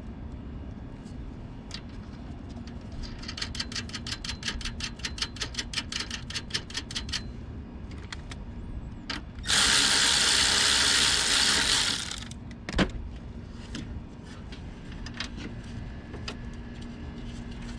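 A ratchet wrench clicks steadily, about five or six clicks a second for some four seconds, while a battery hold-down is tightened. A few seconds later comes a loud, even rushing noise lasting about two and a half seconds, then a single knock and scattered light tool clicks.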